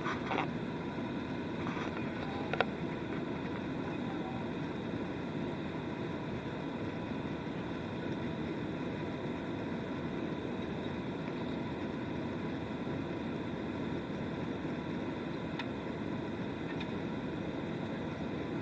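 Steady drone of airliner engines and airflow heard inside the cabin, holding several constant tones. A single sharp click comes a couple of seconds in.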